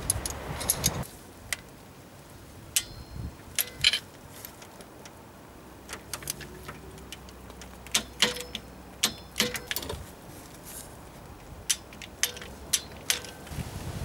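Hand tools clicking and clinking on metal as the coolant pump's bolts are done up: a dozen or more short, sharp, irregularly spaced clicks, some with a brief metallic ring.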